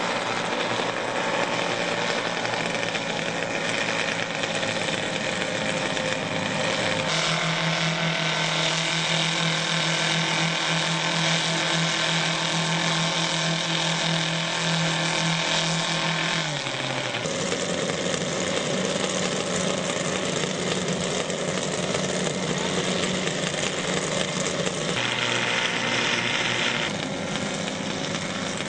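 Engines of a giant radio-controlled B-29 model aircraft running on the ground. The engine note rises about a quarter of the way in, drops back a little past halfway, and gets slightly quieter near the end as the model taxis away.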